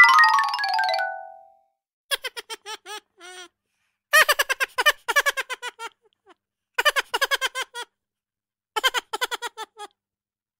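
A quick descending chime run as a sound effect, then a child's giggle effect in four short bursts of rapid 'hee-hee' pulses, with dead silence between them.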